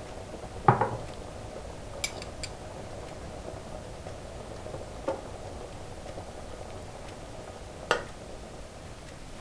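A metal spoon clinks against a stainless steel soup pot a few times while the soup is seasoned and stirred: one knock about a second in, then lighter taps, over the steady hiss of the simmering soup.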